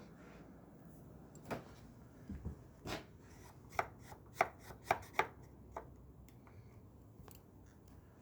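A run of about nine irregular sharp knocks and clicks, the loudest ones coming in a quick cluster a little past the middle.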